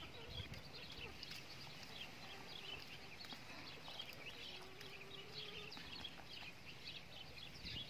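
Small birds chirping busily in the background, with a faint, drawn-out low note about halfway through.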